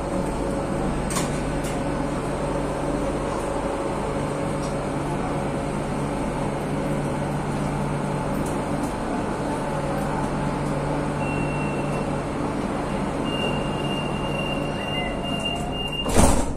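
Madrid Metro Line 9 train, unit 8427, running between stations: a steady rail rumble with a low motor hum. A thin high tone comes in during the second half, and a sharp loud bang sounds just before the end.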